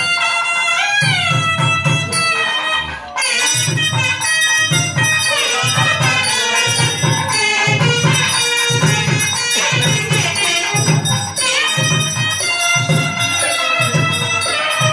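South Indian temple music: a nadaswaram-like reed melody with bending notes over a steady low drum beat, a little under two beats a second, with a brief break in the drum about three seconds in.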